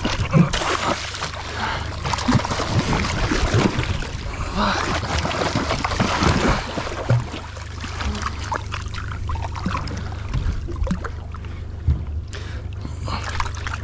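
Boat engine idling steadily, with water splashing and sloshing in irregular rushes and a few knocks on the hull.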